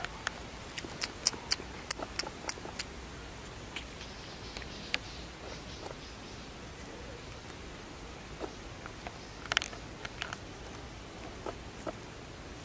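Sharp little clicks and scratches of a baby macaque's hands and nails scrabbling on tree bark: a quick run of about eight in the first three seconds, a brief cluster about ten seconds in, and a few more near the end, over a faint steady hiss.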